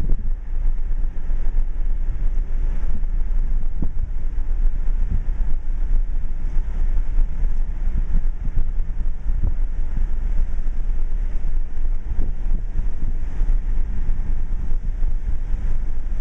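Subaru Outback driving, heard from inside the cabin: a steady low rumble of road and engine noise, with a few short thumps from bumps in the road.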